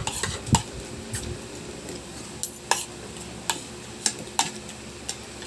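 Spoons and forks clinking and scraping against plates as two people eat, a string of scattered sharp clinks a half second to a second apart.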